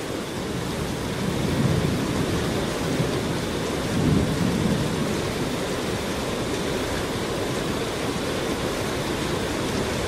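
Flooded river rushing past in a raging torrent: a steady roar of water, with low rumbling swells about a second and a half and four seconds in.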